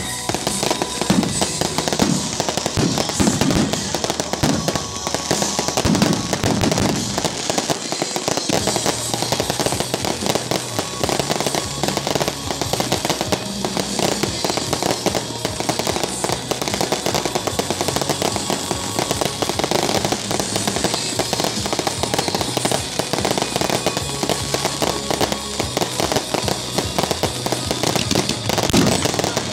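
Fireworks finale: many shells and fountains going off at once, making a dense, continuous barrage of bangs and crackling, with music playing underneath.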